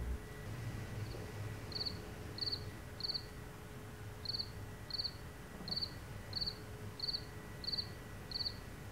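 A cricket chirping: short, high, trilled chirps repeating about every two-thirds of a second, starting about a second in, over a faint steady hum.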